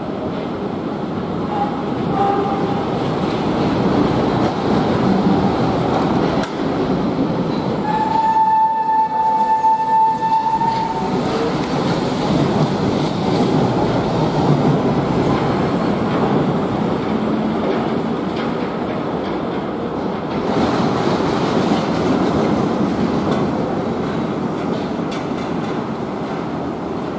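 Wuppertal Schwebebahn suspended monorail cars running along the overhead steel track: a steady, loud rumble of wheels on the rail, swelling and easing as the cars pass and approach. About eight seconds in, a steady high tone sounds for about two and a half seconds.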